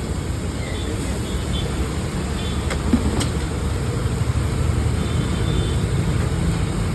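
Busy street ambience: a steady low rumble of road traffic, with a few sharp clicks about three seconds in.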